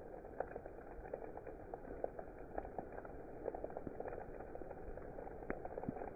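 Steady rain, with many separate drops ticking sharply over a continuous hiss.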